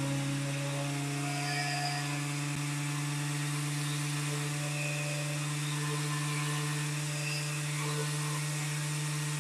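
Menzer random orbital sander running steadily with an 80-grit Smirdex mesh disc, sanding a thick finish coat off a block of solid wood: an even motor hum.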